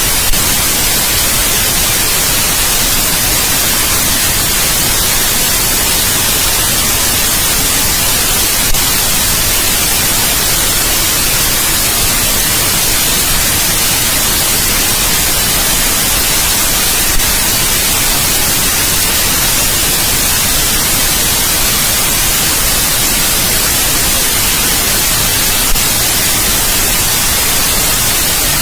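Steady white noise: a loud, even hiss across the whole range, brightest in the highs, with a faint click about every eight and a half seconds.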